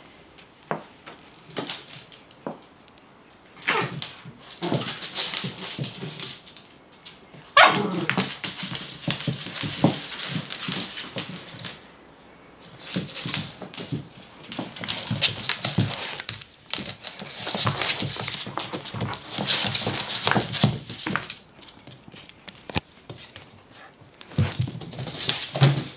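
Small dog going after a ball under a couch: long spells of scrabbling and snuffling, each several seconds, separated by short pauses, with a few short barks among them.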